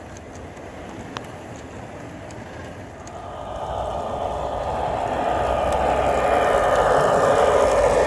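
O gauge model train approaching along the garden track, its running noise growing steadily louder from about three seconds in, with a steady whine over it.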